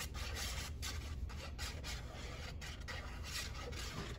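Tip of a liquid glue bottle dragging across cardstock as glue is squeezed out in looping lines: a run of short scratchy rubbing strokes with brief gaps, over a low steady hum.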